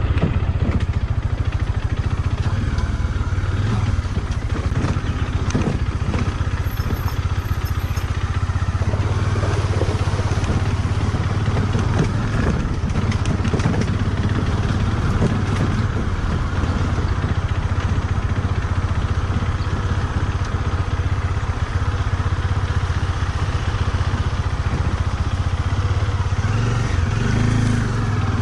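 Motorcycle engine running steadily while riding over a rough off-road trail, with rattling and clattering from the bike over the bumps.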